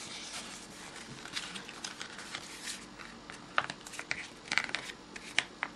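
A sheet of paper being folded and creased flat by hand: soft rustling broken by short, crisp crackles, with several sharper ones in the second half.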